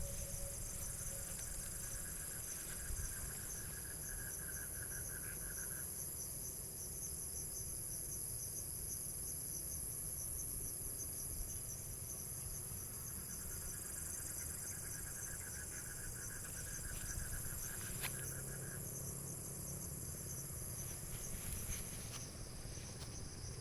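Crickets and other night insects chirring steadily in a high, fast-pulsing chorus. A lower trill joins twice, each time for about five seconds.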